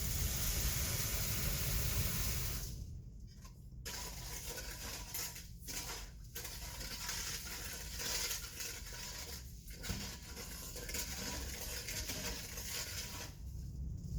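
Water running and splashing at a sink as a burned-off asphalt aggregate sample is washed in a pan and the wash water decanted over sieves, stopping briefly a few times.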